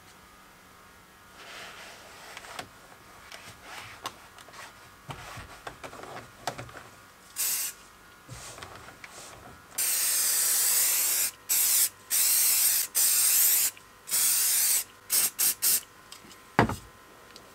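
An aerosol can of isopropyl alcohol spray hisses in a string of bursts: two about a second and a half long and several short puffs. Before them a cloth rubs faintly over the car's interior trim. A sharp knock comes near the end.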